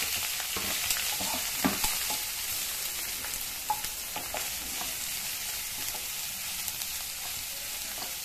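Chopped onions and green chillies sizzling in hot oil in a nonstick kadai, stirred with a wooden spatula that scrapes and knocks against the pan a few times.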